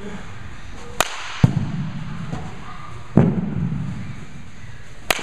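Baseball bat striking balls in an indoor batting cage. Sharp cracks of contact come about a second in and again near the end, with dull thuds with a short echo after them, the heaviest about three seconds in.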